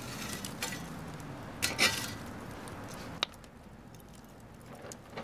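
Metal oven peel scraping and pushing burning wood and embers across a wood-fired oven's floor, with light clinks of breaking charcoal. A louder scrape comes about two seconds in, then a sharp click, after which it goes quieter.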